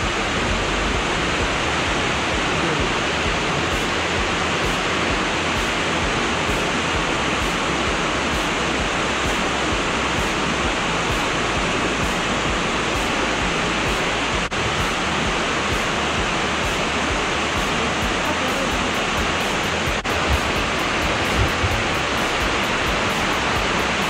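Small mountain waterfall cascading over rocks: a steady, even rush of falling water.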